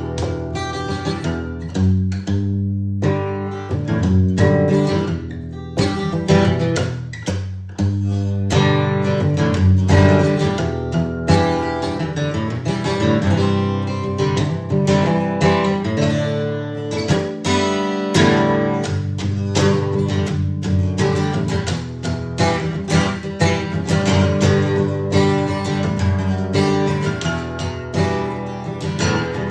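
Guitar strummed and picked in a continuous run of quick chords and notes over ringing low strings.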